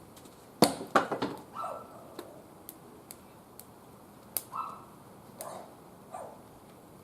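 Wood fire crackling, with sharp snaps and pops scattered through, the loudest a cluster about a second in. Several short whines falling in pitch come in between the pops.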